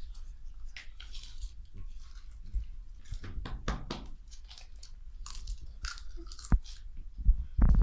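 Sour potato chips crunched and chewed close to the microphone, in short irregular crackles. A loud low bump comes near the end.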